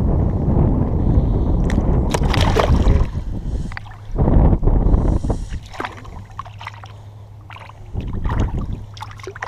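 Wind rumbling on the microphone and water sloshing around someone wading in shallow bay water. The rumble is heaviest for the first few seconds, then comes in uneven gusts and splashes.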